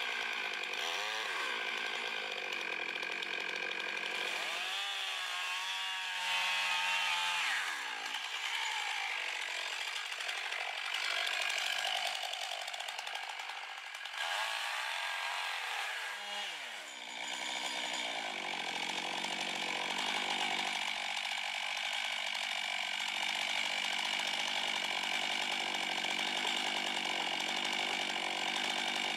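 Stihl MS 661 Magnum two-stroke chainsaw with a 32-inch bar running hard while cutting into a large ponderosa pine trunk, making the back cut. The engine note dips twice, about six and sixteen seconds in, then picks up again.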